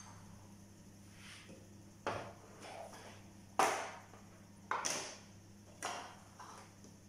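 Kitchen utensils being picked up and set down: a metal box grater, a knife and plastic bowls knocking on the counter and on each other. There are four sharp knocks about a second apart with softer clatters between, over a steady low hum.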